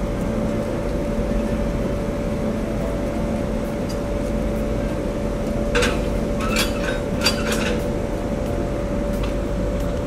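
A standing locomotive hums steadily with a constant whine over a low rumble. A few short metallic clinks come together about six to seven and a half seconds in, as the engine is coupled to the train at its front coupler.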